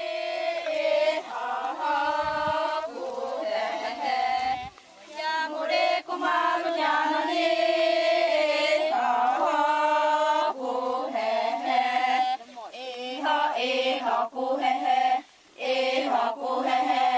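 A group of women chanting together in unison, in long held phrases with brief pauses between them.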